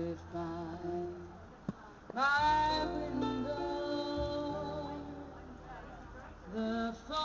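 Live jazz quartet playing: a saxophone melody over keyboard chords and a plucked double bass. About two seconds in, a strong held lead note enters with an upward scoop.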